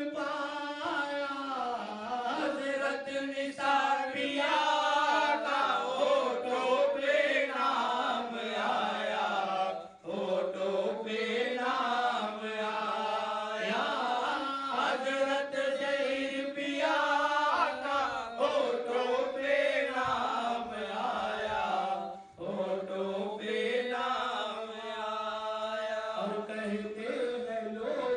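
A man singing a devotional Sufi song into a handheld microphone, unaccompanied, in long wavering melodic lines. He breaks briefly for breath about ten seconds in and again a little past twenty seconds.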